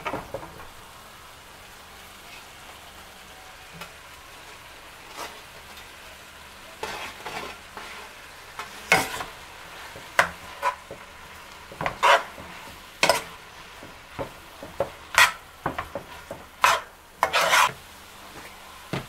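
Shredded chicken, onions and bell peppers sizzling gently in a frying pan, with a utensil scraping and knocking against the pan as the mixture is stirred. The stirring comes in short repeated strokes, starting about a third of the way in.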